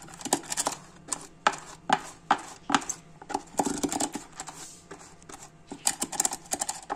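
Silicone pastry brush dabbing and scraping oil around the inside of a plastic pudding mould to grease it, with irregular plastic clicks and scrapes.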